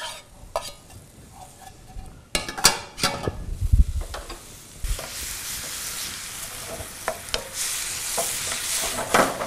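Diced pumpkin frying in oil in a frying pan, stirred with a wooden spatula: a few knocks of pan and spatula in the first seconds, then a steady sizzle from about five seconds in.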